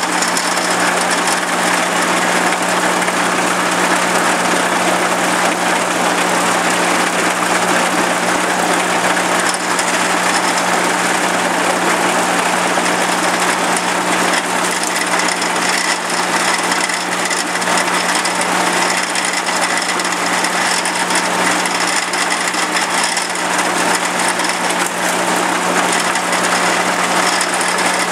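Farm machinery running steadily at close range: an engine with a constant low drone under a dense, unbroken mechanical clatter and hiss.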